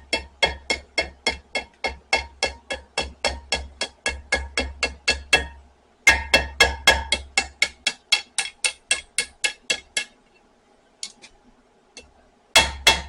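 Blacksmith's hand hammer striking red-hot spring steel on an anvil in fast, steady blows, about four or five a second, with ringing metal clangs. The steel is being bent round into a curl. The hammering pauses briefly twice, with a couple of light taps in between, then resumes near the end.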